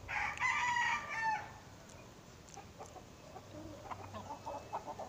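Rooster crowing once at the start, a loud call of about a second and a half that ends on a lower note.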